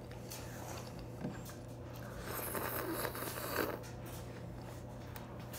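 Eating sounds: sipping and slurping noodle soup from a spoon, with a few small clicks, over a steady low hum.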